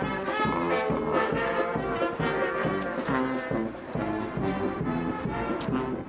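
Brass band playing a tune: trumpets and a sousaphone over a steady drum beat.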